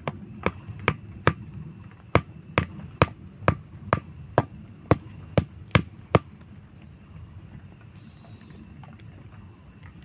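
Hammer striking the top of a wooden stake set in the ground: about thirteen sharp blows, roughly two a second, stopping about six seconds in.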